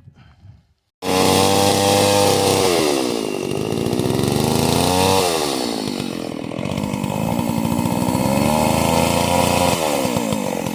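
Chainsaw running, starting abruptly about a second in, its engine pitch repeatedly dropping and rising again.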